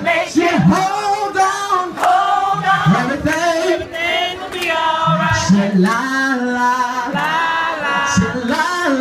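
Crowd of men and women singing a gospel song together, voices holding long notes that slide between pitches.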